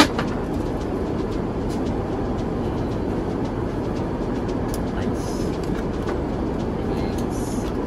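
Steady rumble of an airliner cabin in flight: engine and airflow noise heard from inside the cabin, with a sharp click at the very start.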